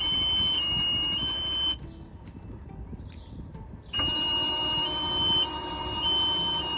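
Two-tone electronic warning buzzer of a Chaparral 247 SSX's electric EFX tower arch, sounding while the arch motor runs. The buzzer steps between two notes about every half second over a steady motor hum. It stops a little under two seconds in and starts again about four seconds in, as the arch is lowered and then raised.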